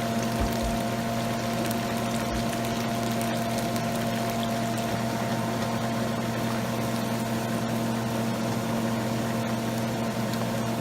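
Chicken gizzards deep-frying in hot oil, a steady sizzle, over a steady motor hum.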